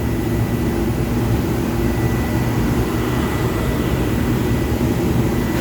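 Cabinet cooler's small refrigeration compressor running with a steady hum and drone, its condenser fan motor locked up and not turning. A faint steady high whine sits over the drone.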